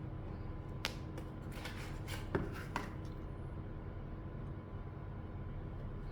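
A handful of irregular light clicks and taps from keycaps on a mechanical keyboard, bunched between about one and three seconds in, the loudest near the middle of that run, over a steady low hum.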